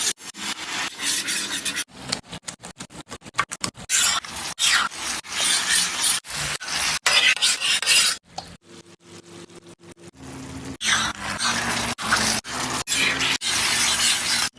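Cooking sounds in short cut-together pieces: a utensil scraping and stirring in a pan, with sizzling. The sound stops and starts abruptly many times.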